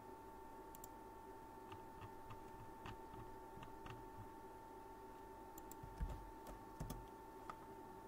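Scattered computer keyboard and mouse clicks, with two louder knocks about six and seven seconds in, over a faint steady electrical whine.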